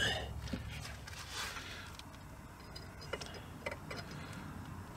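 A few faint, scattered clicks and light taps of drum-brake hardware being handled and fitted onto the brake backing plate.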